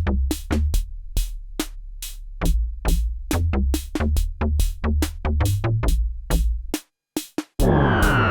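MFB-301 Pro analog drum machine playing an electronic beat: sharp percussive hits in a steady rhythm over a low bass line that steps between notes. About seven seconds in the pattern drops out briefly, then a loud, dense synth tone comes in, sliding down in pitch.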